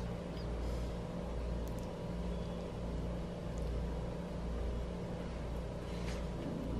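Steady low mechanical hum of room tone, made of several steady tones, with a few faint ticks.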